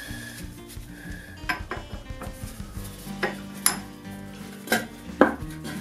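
Metal parts of a Barnes No. 5 velocipede lathe headstock, its spindle and large gear, clinking and knocking as they are handled and fitted: a string of sharp metal clinks, the loudest about five seconds in, over soft background music.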